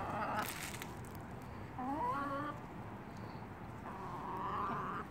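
Backyard hens calling: a short rising call about two seconds in, and a longer drawn-out, whining call near the end.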